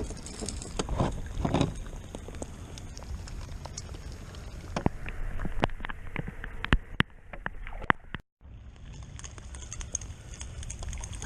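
Scattered small knocks and clicks of gear handled on a kayak over a steady low rumble, with a brief dropout about eight seconds in where the sound cuts out.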